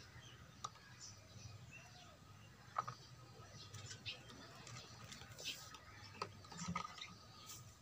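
Faint scattered ticks and light taps from a small bonsai tree being handled and set down in a plastic tray, over a low steady hum.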